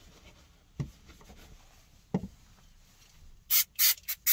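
Aerosol brake cleaner sprayed onto motorbike brake pads in several short hissing bursts near the end. Before the spraying there is rag rubbing and two soft knocks of parts handled on the towelled bench.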